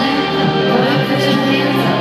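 Live band music played through a concert hall's sound system, recorded from within the audience, with long held chords and no break.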